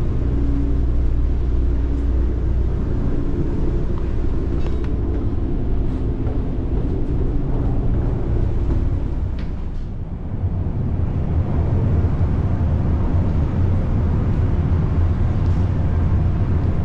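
Ferry's engines running, a steady low drone with a deep hum. About ten seconds in it dips briefly and the hum settles to a slightly different pitch.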